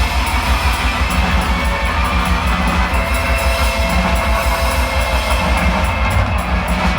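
Rock band playing live, with electric guitar, bass and a drum kit keeping a steady beat on the cymbals.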